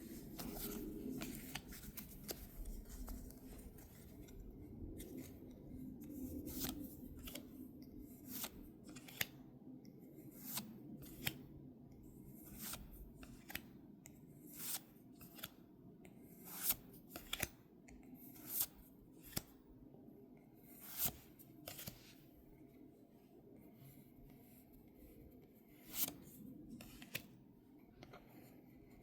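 Pokémon trading cards being handled and flipped through by hand: a string of short, irregular swishes and clicks as the cards slide past one another, every second or so.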